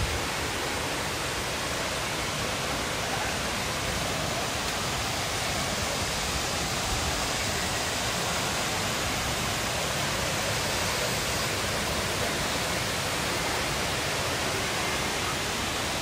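Steady rush of water from a waterfall and a shallow rocky stream.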